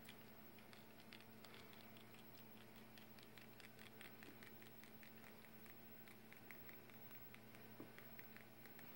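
Near silence: a faint steady low hum with a scatter of faint light ticks.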